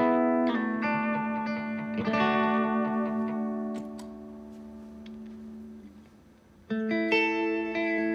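Electric guitar (Maybach Teleman T61) played through a valve combo amp, with lightly overdriven chords struck and left to ring. Chords sound about half a second and two seconds in and fade almost to silence, then a fresh chord rings out near the end.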